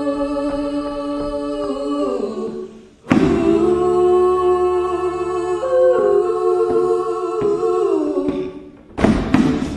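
A small vocal group humming sustained chords in close harmony, with no instruments. One chord fades, a new one begins about three seconds in and moves up in pitch partway through, then fades. Near the end a quick, rhythmic tapping begins.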